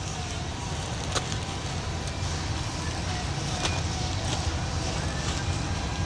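Steady low rumble of shop background noise, with two sharp plastic clicks from handling the bumper and grill parts, about a second in and again a little past halfway.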